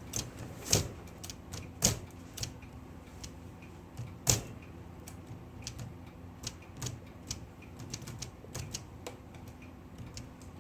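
Vintage Smith Corona typewriter's mechanism being worked by hand: scattered sharp clicks and knocks, the loudest about four seconds in, with fainter ticks between. The part is catching instead of moving smoothly.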